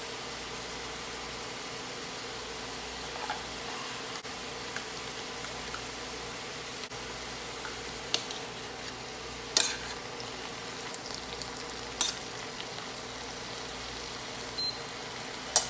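Broccoli florets sizzling steadily in an oiled stainless-steel frying pan, with a faint steady hum underneath. In the second half a metal spoon clinks sharply against the pan about four times while the oyster sauce is stirred in.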